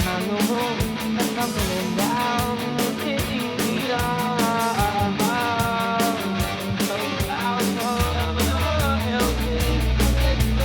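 Rock-style music with guitar and a steady fast drum beat under a bending melody line; the bass gets heavier about eight seconds in.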